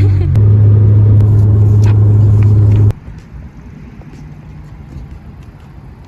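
Loud, steady low rumble of a car on the move, cutting off abruptly about three seconds in to a much quieter steady background noise.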